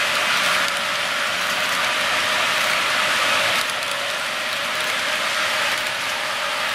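HO scale model double-stack train rolling past: a steady rapid clicking and rolling rattle of the well cars' small metal wheels on the track, with a thin steady whine underneath.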